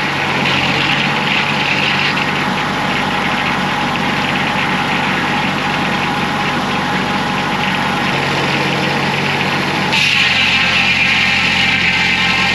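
Homemade bandsaw sawmill's engine running steadily, with a brighter hiss coming in about ten seconds in.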